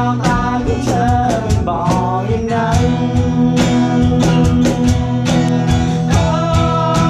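Background music: a song with a steady beat, guitar and a singing voice.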